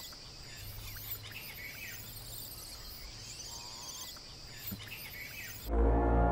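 Outdoor nature ambience: a steady high insect drone with bird chirps and trills. Near the end, loud slow music with long held notes over a low drone comes in.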